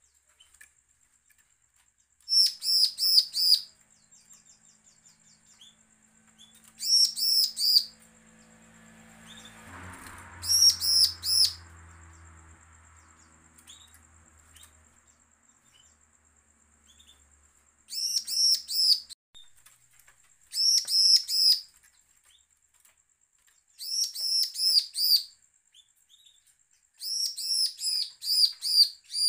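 Bar-winged prinia (ciblek) singing in seven bursts, each of five or six loud, quick, identical high notes, a few seconds apart. It is an aggressive challenge song, the kind played to provoke other ciblek into singing.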